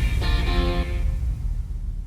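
Background music: guitar chords over a heavy bass, with the chords dying away about a second in.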